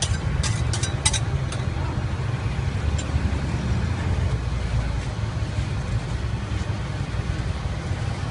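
A steady low rumble, with a few sharp clicks in the first second or so as metal spatulas tap on the fried ice cream machine's cold pan.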